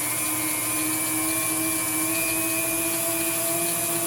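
KitchenAid stand mixer running at a steady speed, its electric motor driving the lasagna noodle cutter attachment: an even motor hum and whine.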